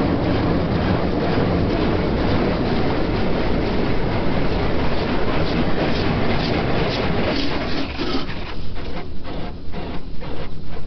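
Water jets of a Futura Revolution touchless car wash spraying onto the car's body and windows, heard from inside the cabin. It is a dense, steady rush that about eight seconds in thins into a rapid, uneven pulsing.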